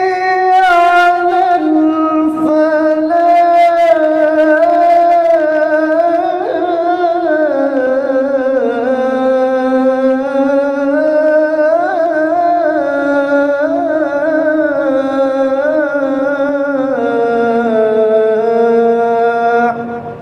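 A man's voice calling the Maghrib adhan, the Islamic call to prayer, sung as one long drawn-out phrase. It carries melismatic ornaments, and its pitch sinks gradually before the phrase ends near the close.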